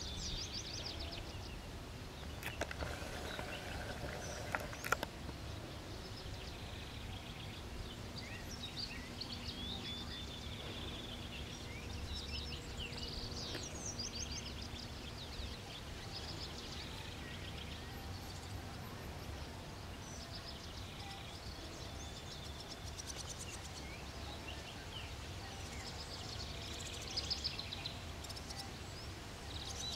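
Small birds chirping and singing over a low steady background rumble, with a few sharp clicks about three to five seconds in.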